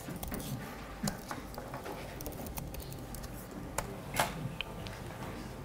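Scattered key clicks and small knocks from a laptop keyboard being typed on, over faint room noise.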